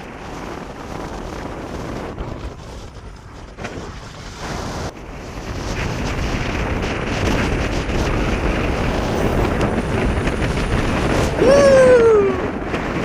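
Wind buffeting the microphone while riding an electric unicycle, growing louder partway through. Near the end, a short pitched call that falls in pitch.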